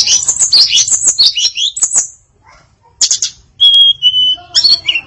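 Female tledekan songbird singing a varied song: a fast run of sharp high chirps and warbles for about two seconds, a short pause, then more chirps, two clear steady whistled notes and a last burst of chirps near the end.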